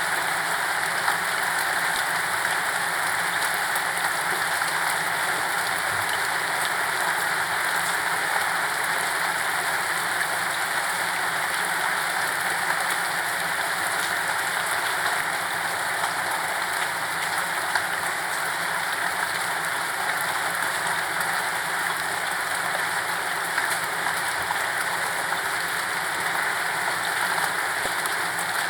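Steady, unbroken rain falling, an even hiss with faint scattered drop ticks.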